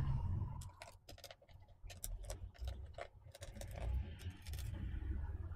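Faint, irregular small clicks and ticks from a T5 Torx screwdriver working the tiny bracket screws in a laptop's aluminium case: the tip seating in the screw heads and the screws being backed out.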